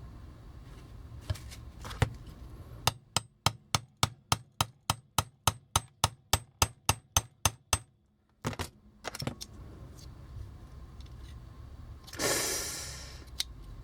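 Small hammer tapping at a part of a vintage Transformers toy, a run of about twenty quick, even strikes at roughly four a second, then a few separate knocks. A short scraping hiss follows near the end.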